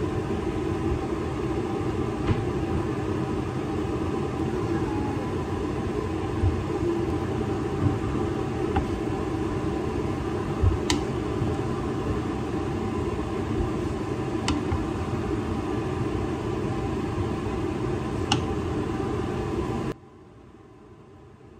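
A steady low hum and rumble of kitchen machine noise, with the sharp clicks of a wooden spatula knocking against a metal pot as fried noodles are stirred, about every few seconds. About 20 s in the hum cuts off suddenly, leaving a much quieter background.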